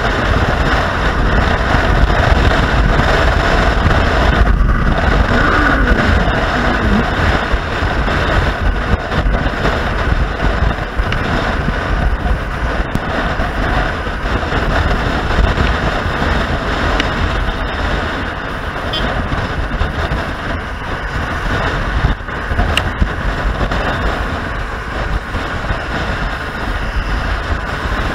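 Wind rushing over the microphone of a moving motorcycle, with engine and road noise underneath, loud and steady.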